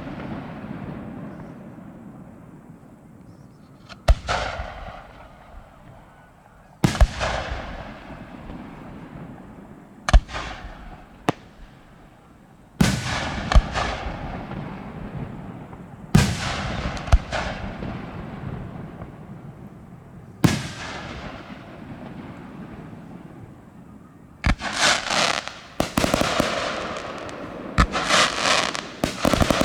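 Aerial firework shells bursting one after another, about every three seconds: each is a sharp bang followed by a fading crackle. In the last few seconds the bursts come in a quick string of crackling reports.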